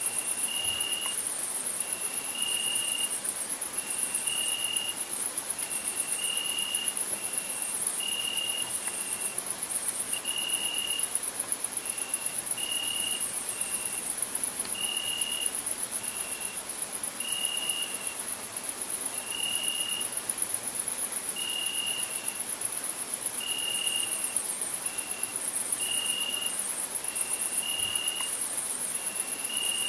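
Crickets singing: a loud, very high, continuous pulsing trill, with a separate short, lower note repeating about once a second.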